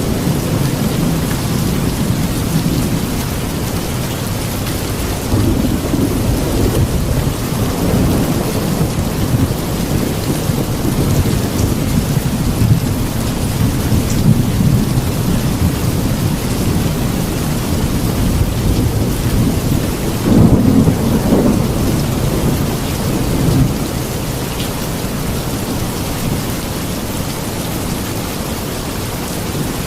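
Steady heavy rain with thunder rumbling low underneath, swelling and fading several times; the loudest roll of thunder comes about two-thirds of the way through.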